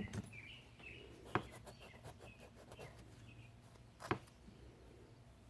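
Faint birds chirping in short, high repeated notes, with two sharp clicks, one about a second and a half in and one about four seconds in.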